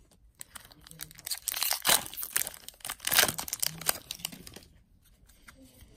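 Foil wrapper of a Magic: The Gathering booster pack crinkling and tearing as it is ripped open, loudest about two and three seconds in and dying down near the end.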